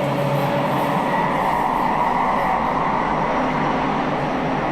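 Elizabeth line Class 345 train, steady rumble and hum heard from inside the carriage.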